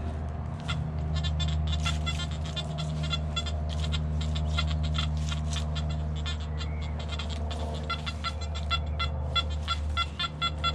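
Nokta Anfibio metal detector giving a rapid run of short high-pitched beeps as its coil is swept back and forth over a target, over a steady low hum.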